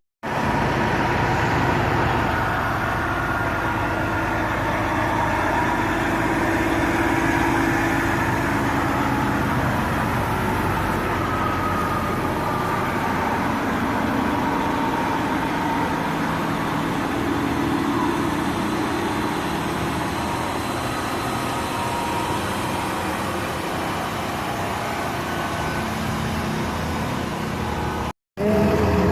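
Engines of parade vehicles running, a steady rumble mixed with general street noise.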